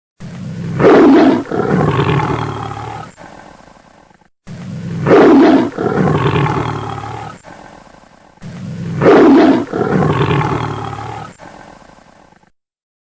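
Tiger roaring three times, about four seconds apart; each roar opens with a loud burst, has a second call close behind, then trails off.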